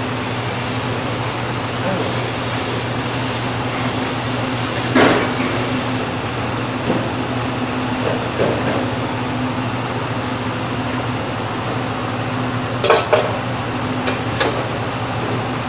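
Steady noise of commercial kitchen equipment with a low hum underneath, broken by sharp metal clanks of pots and utensils about five seconds in and a few more near the end.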